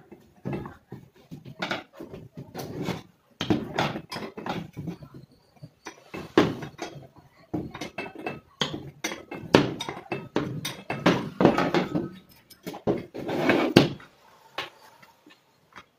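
Irregular metallic clinks, knocks and scrapes from a power tiller's cooling fan assembly being dismantled by hand: the fan housing shifted on a wooden bench and the nut, washers and pulley coming off the fan shaft and being set down.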